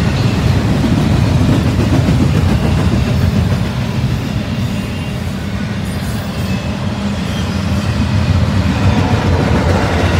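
CSX double-stack intermodal train rolling past: the well cars' steel wheels running on the rails in a loud, steady rumble that eases a little about halfway through and then builds again.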